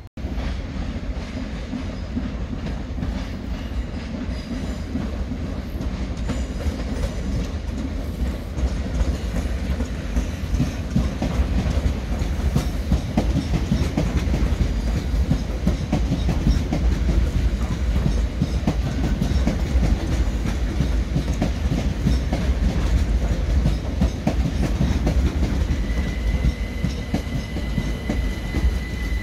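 Gatwick Express Class 387 Electrostar electric train rolling slowly through the pointwork. It makes a steady rumble, with wheels clattering over rail joints and crossings. A thin, steady high squeal comes in near the end.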